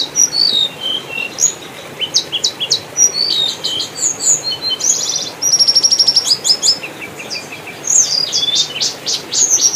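Birds chirping and calling, many short high notes, quick sweeps and trills overlapping, with a fast run of evenly repeated notes about halfway through.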